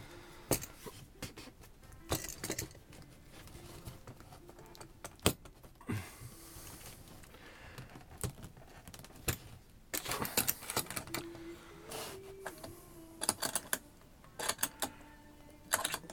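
Steel G-clamps being handled and repositioned on a wooden cigar-box press: scattered metallic clicks and knocks as the clamp frames and screws bump against the wood, busiest about ten seconds in and again near the end.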